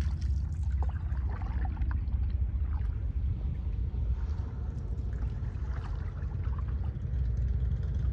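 Canoe being paddled on calm water: faint splashes and drips from the paddle strokes, under a steady low rumble.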